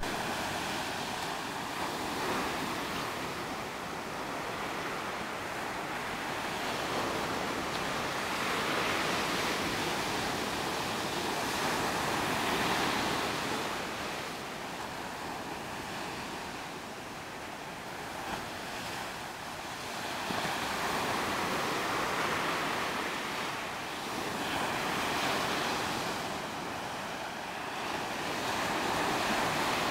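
Ocean surf breaking on a sandy beach: a steady wash of waves that swells and ebbs every few seconds.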